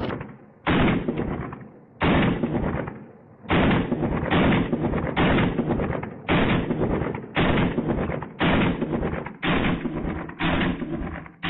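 Glock pistol firing a steady string of single shots, about one a second, about ten in all, each with a ringing tail that fades before the next.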